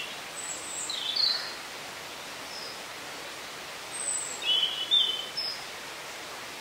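Woodland songbirds singing in two short bursts of high chirps and trills, one about a second in and another around four to five seconds in, over a steady background hiss.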